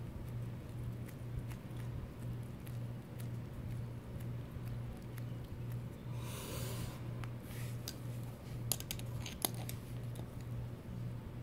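Faint clicks and a short rustle of a screw being driven in by hand to fix an RC truck's differential outdrive in place, with a few sharper clicks near the end. Under it runs a steady low hum that pulses about twice a second.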